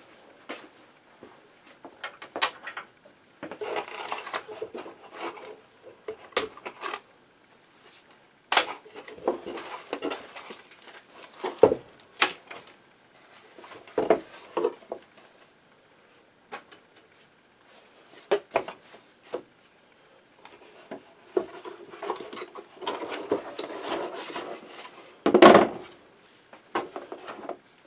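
Handling noise of an MDT Oryx rifle chassis and its polymer magazine: scattered clicks and knocks of parts being fitted and set down, with stretches of rubbing and rustling. One louder knock comes near the end.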